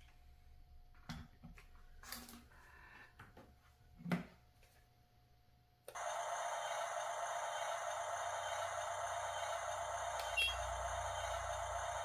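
Light clicks and knocks of a plastic toy bulldozer being handled. About six seconds in, a steady whirring hiss switches on abruptly and holds level.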